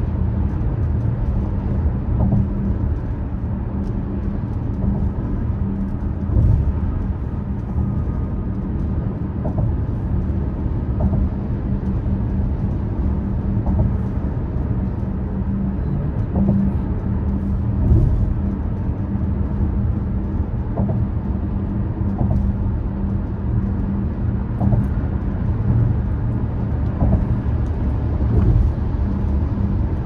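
Car driving at highway speed: steady tyre and road rumble with a low hum, and light thumps every second or two.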